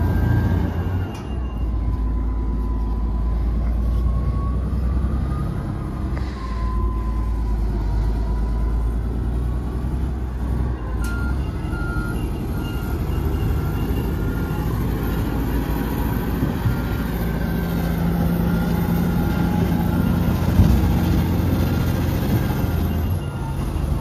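Komatsu D85EX crawler bulldozer's diesel engine working under load, a steady low rumble. From about halfway in, a reversing alarm beeps over it at an even pace.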